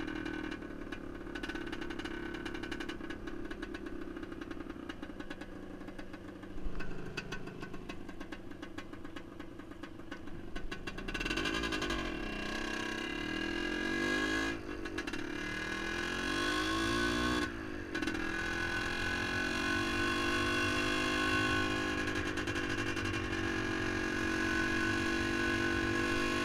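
1978 Yamaha DT400E's single-cylinder two-stroke engine running while the bike is ridden. From about eleven seconds in, its pitch rises and falls several times as the revs change, then holds steadier.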